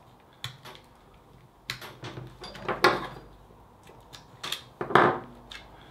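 Sharp plastic clicks and taps from a Land Rover smart key fob being handled as its release switch is pressed and the battery tray slid out. About five separate clicks, the loudest about three seconds in and near the end.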